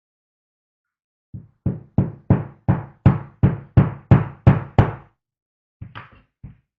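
A run of about eleven even knocks, roughly three a second, each a heavy thud, then three lighter knocks near the end: hammer strikes during the workshop restoration of a wooden plane.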